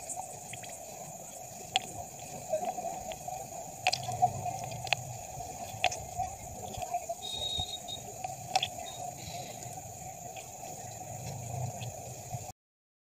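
Wet freshwater snail shells clicking against one another in a tub of water as a hand rummages through them, with light splashing and dripping. Sharp clicks come irregularly, one every second or two, and the sound cuts off suddenly near the end.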